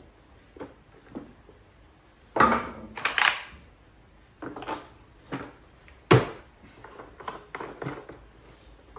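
Hard plastic parts of a pressure washer hose reel being handled and fitted together: irregular knocks, clacks and scrapes. The loudest come a little after two seconds, around three seconds and around six seconds in.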